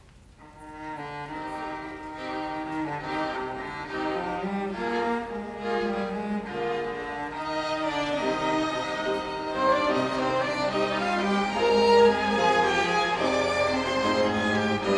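Violin ensemble playing an instrumental introduction, sustained bowed notes with a cello or low strings underneath, swelling gradually louder.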